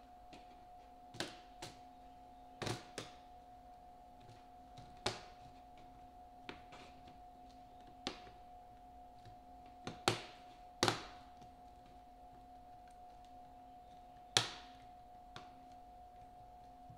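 Sharp clicks and light knocks, about ten in all at irregular intervals, as an opened laptop and its small parts are handled. A faint steady hum sits under them.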